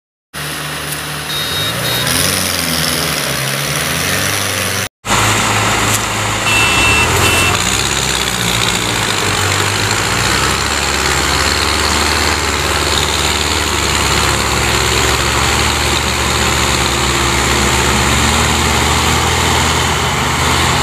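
Mahindra and Sonalika tractors' diesel engines running hard under load as one tows the other, which hauls a fully loaded sugarcane trolley on a rope. The engine pitch shifts over the first few seconds, then, after a brief gap about five seconds in, settles into steady running.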